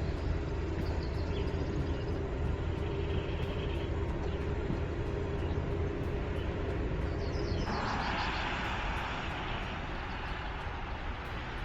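Volkswagen ID. Buzz electric van driving: steady tyre and wind noise over a low road rumble, with no engine sound. A hissing swell rises about eight seconds in and fades a couple of seconds later.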